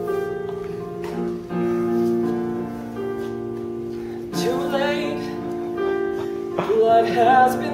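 Keyboard accompaniment playing sustained chords, the lead-in to a song in a stage musical. A voice comes in briefly about halfway through and again near the end.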